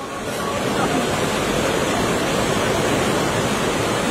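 Fast-flowing floodwater rushing in a steady, dense noise that builds up over the first second and then holds.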